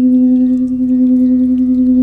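Singing bowl sustaining one steady, unbroken tone with a clear overtone above it and a slight regular wavering in volume.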